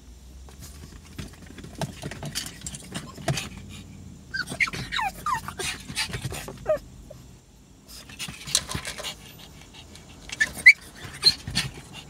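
A dog whining inside a car, in high falling whimpers about four seconds in and again near the end, between stretches of breathy panting.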